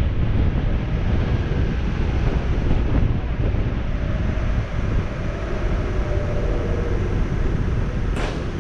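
Wind buffeting a bonnet-mounted microphone on a moving Mazda MX-5 NB, with the car's inline-four engine and intake running steadily underneath. A brief sharp sound comes near the end.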